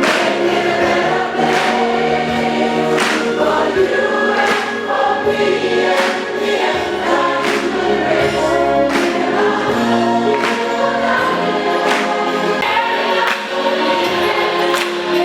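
Gospel-style choir singing with accompaniment, many voices holding sustained notes over a steady beat that lands about every second and a half.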